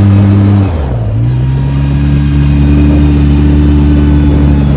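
Quad bike engine running under throttle across sand. Its revs dip sharply about a second in, then climb slowly and hold.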